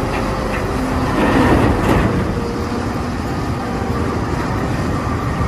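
Caterpillar 992G wheel loader's diesel engine running hard while it dumps a bucket of earth into a dump truck, with the pour of material swelling loudest about a second or two in.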